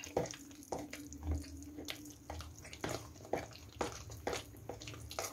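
A fork beating a runny batter of chopped nettles, egg, flour and water in a plastic bowl: wet slaps and light taps of the fork, about two strokes a second.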